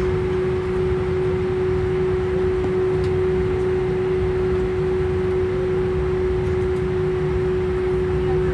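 Steady drone inside an airliner cabin before takeoff: a low rumble with one constant humming tone above it.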